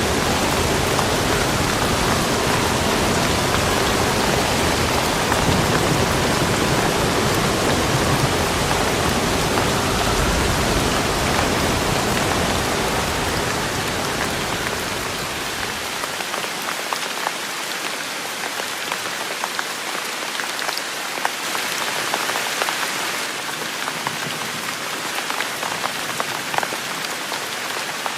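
Steady rain falling, a dense even hiss with individual drops ticking on a surface. A low rumble under the rain drops away about halfway through, leaving the drop taps more distinct.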